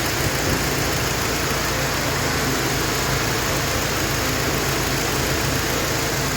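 Car engine idling steadily, not revved.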